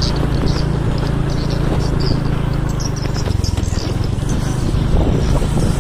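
Motorcycle engine running while riding over a gravel road, heard from the pillion seat. The engine note changes about three seconds in.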